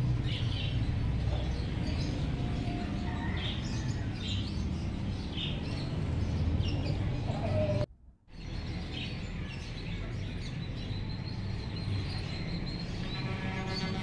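Small caged finches chirping with short, scattered high calls over a steady low background rumble. The sound drops out briefly about eight seconds in.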